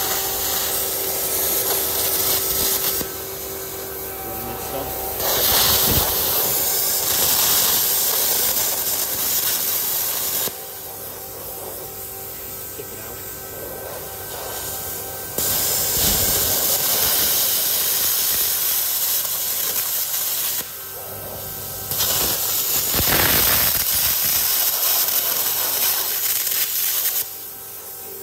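Handheld plasma cutter cutting an old steel disc: a loud steady hiss in four runs that start and stop abruptly, with quieter pauses between as the torch is moved.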